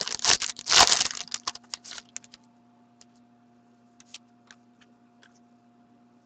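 Foil trading-card pack wrapper being torn open and crinkled, loudest about a second in and stopping after about two seconds. A few faint clicks follow as the cards are handled, over a low steady hum.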